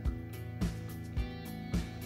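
Background music with a steady beat, a little under two beats a second.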